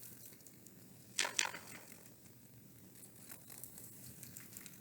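Paper rustle of a picture book being handled and a page turned: a short double swish a little over a second in, with faint scattered rustles and clicks around it.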